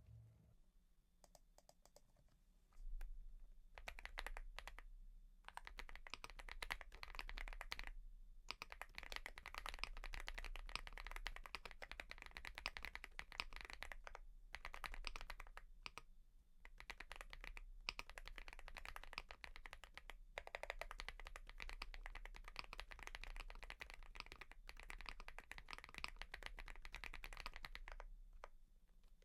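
Mchose GX87 mechanical keyboard with KTT Fog Blue switches being typed on: a few single keypresses, then about three seconds in, fast runs of keystrokes broken by short pauses.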